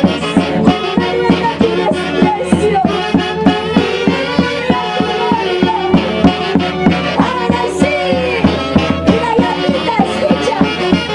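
Band music playing with a steady beat under melody lines.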